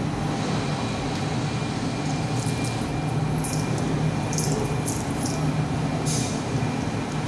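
A steady low mechanical hum with a faint high whine, like machinery or ventilation running. From about two and a half seconds in, a few light clicks and rustles come as small plastic test-kit parts are handled.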